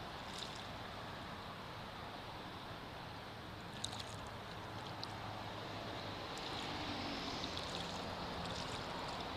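Birds giving a few short, high chirps now and then over a steady rushing background, with the chirps more frequent in the second half.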